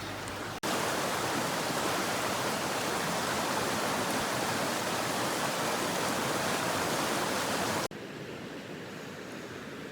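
Steady rushing of a flowing stream, starting abruptly about half a second in and dropping to a quieter rush near the end.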